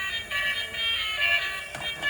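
Tinny electronic melody of high beeping notes that change pitch every fraction of a second.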